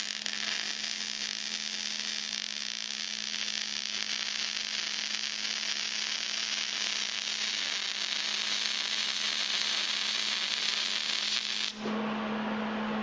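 MIG welding arc crackling steadily as a V-band clamp half is welded onto a stainless exhaust pipe, cutting off suddenly near the end, after which a steady low hum remains.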